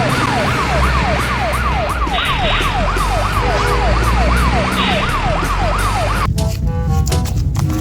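A siren sounding in quick repeated sweeps between high and low pitch, about three a second, that cuts off about six seconds in; short musical notes follow near the end.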